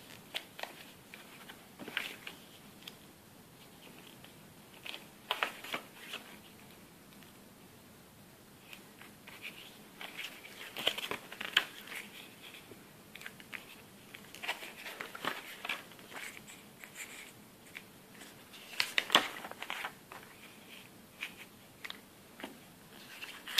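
Paper pages of a small CD lyrics booklet being handled and leafed through by hand: irregular rustles and crinkles in clusters, the loudest about halfway through and again a few seconds before the end.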